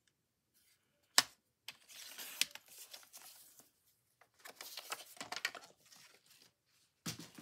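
A paper trimmer cutting an index card: a sharp click about a second in, then the blade scraping through the card for a second or so. Further paper and trimmer handling noise follows, and a thump near the end.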